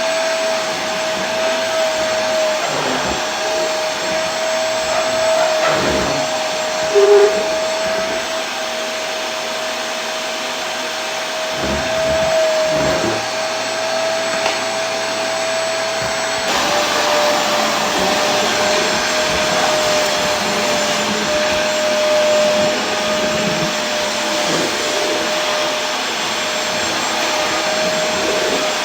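Vacuum cleaner running continuously: a steady motor whine over a rush of airflow. The whine steps down slightly in pitch a little past halfway.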